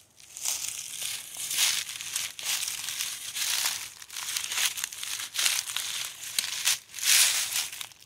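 Footsteps crunching through dead leaves, about two steps a second, stopping abruptly near the end.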